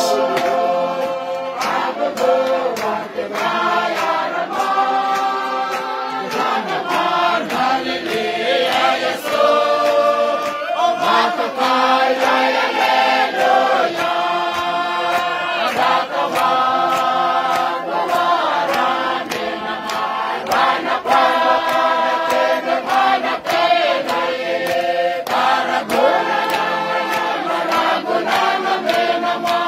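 Mixed choir of men and women singing together in harmony, holding long chords that shift every second or two. Regular sharp taps or claps keep time under the singing.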